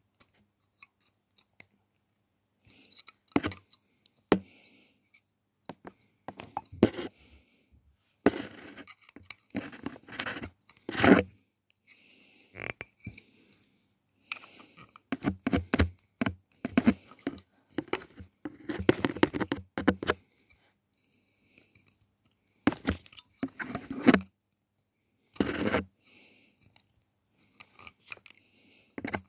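Pliers gripping and twisting the brass wires on a cane bassoon reed blank, heard very close as irregular scraping and crunching in short bursts with pauses between.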